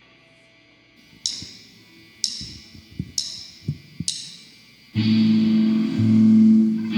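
A band starting a song: four cymbal taps about a second apart count it in, then at about five seconds the full band comes in with electric guitar and bass on a sustained chord.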